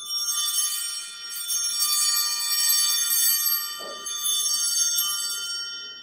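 Altar bells rung at the elevation of the chalice after the consecration, marking that moment of the Mass. A cluster of small bells jingles, swelling and fading about three times, then dies away near the end.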